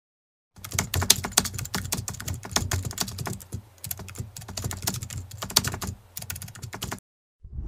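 Computer keyboard typing, a rapid run of key clicks that starts about half a second in and stops suddenly near the end, followed by the start of a deep thud just before the end.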